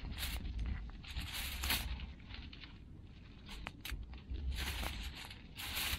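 Aluminium foil crinkling and rustling in several short bursts as it is handled and wrapped around a chicken.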